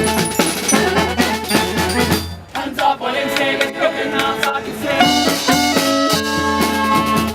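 Street brass band playing live, horns over bass and drums. A little over two seconds in, the bass and cymbals drop out, leaving a few horn lines, and the full band comes back in near the five-second mark.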